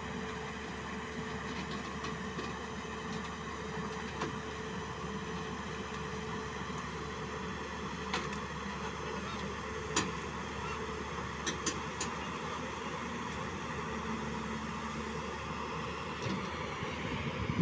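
JCB 205 tracked excavator's diesel engine running steadily as the boom and bucket are lowered, with a steady whine over the first half and a few sharp clicks about halfway through.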